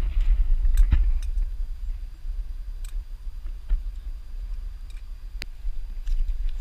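Low, steady rumble of wind buffeting a small action-camera microphone, with scattered light clicks and taps from walking.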